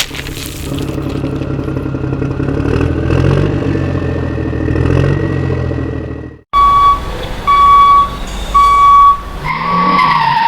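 Vehicle engine running steadily for about six and a half seconds, then cutting off suddenly. Three loud, long beeps at one pitch follow, with a falling tone near the end.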